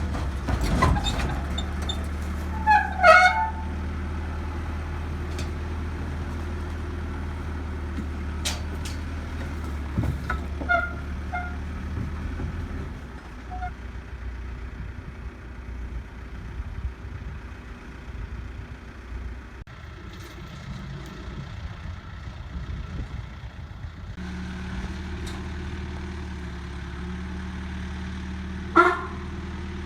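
Backhoe engine running steadily, easing off for a stretch in the middle and then picking up again, with a few short high squeals over it.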